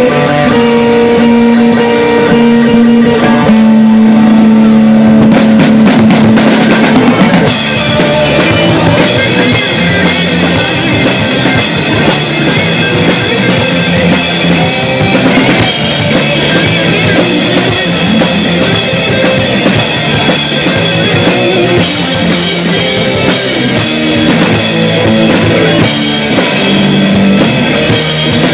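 Live rock band with electric guitars, bass guitar and drum kit. Held guitar notes ring for the first several seconds, then the drums come in and the full band plays loudly.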